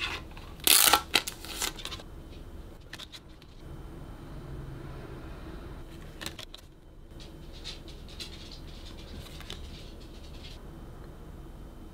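Cardboard packaging and photocards handled by hand: a loud scraping rustle about a second in as card slides against card, then quieter light taps and clicks of the cards being moved.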